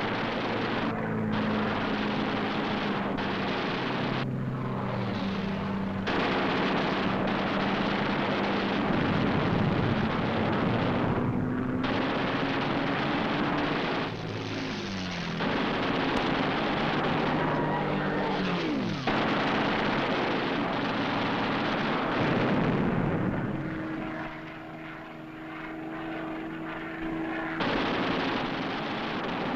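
Piston fighter aircraft's propeller engine running loudly as it dives in, with a steady drone whose pitch shifts. There are a couple of falling glides midway, and the sound eases off briefly near the end.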